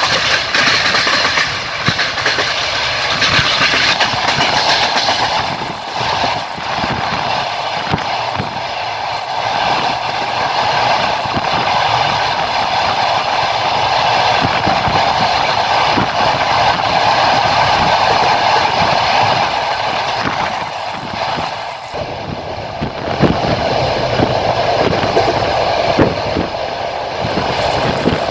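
Passenger train running along the line, heard from a carriage window: a steady rumble of wheels on rail with the clickety-clack of wheels over rail joints, the clacks sharper and more distinct in the last few seconds.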